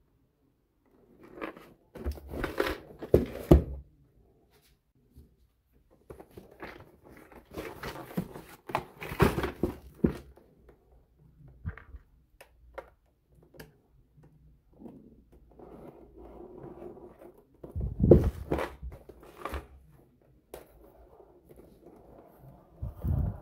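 Plastic shrink-wrap being slit, torn and peeled off a cardboard box, crinkling in several bursts, with a few thumps as the box is handled.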